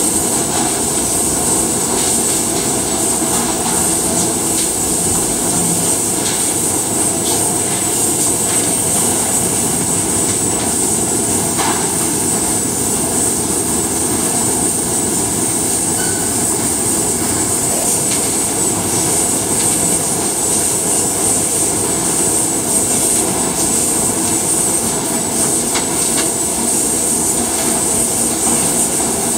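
Steady running noise of a crab-processing line's conveyor and machinery, loud and unbroken, with a constant high hiss and a few faint clatters.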